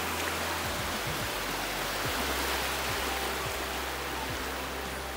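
Low surf washing up onto a sandy beach, a steady rushing hiss.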